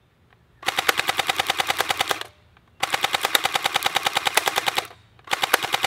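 MP5-style airsoft gun firing on full auto in three rapid bursts of sharp, evenly spaced clacking shots: a longer burst about half a second in, another about three seconds in, and a short one near the end.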